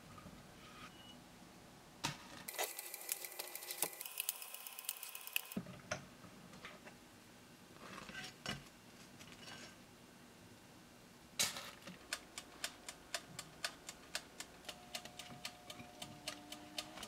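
Faint handling sounds of an electric fish-shaped pastry (bungeoppang) maker: a click as the hinged lid and plates are worked, a few seconds of hiss, and light knocks as the baked pastries are lifted out. About eleven seconds in a sharp click is followed by steady mechanical ticking, about three ticks a second.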